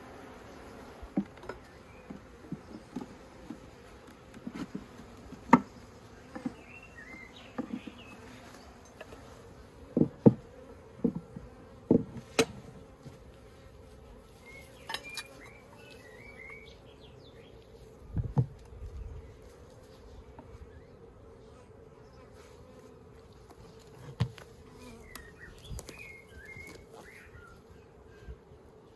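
Honeybees buzzing in a steady hum around an opened hive, with sharp knocks and clicks scattered through it, loudest in the first half.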